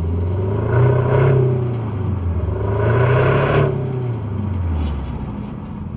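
Subaru Levorg Layback's 1.8-litre turbocharged CB18 flat-four running through an STI performance muffler with unequal-length exhaust, heard at the tailpipe while driving. The engine note rises and falls twice, about a second in and again about three seconds in, then eases off and fades near the end.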